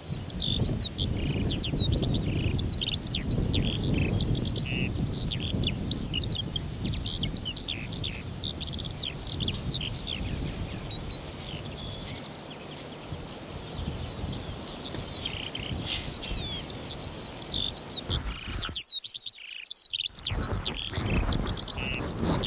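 Songbirds chirping and trilling, with many quick calls overlapping, over a low, uneven rumble. The sound drops out for about a second near the end.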